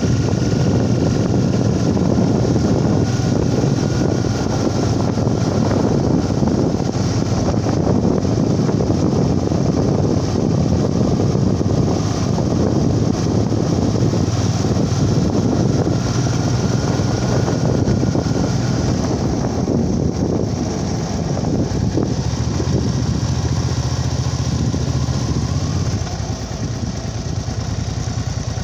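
A small engine running steadily as the vehicle is ridden along, with a constant rushing noise mixed in.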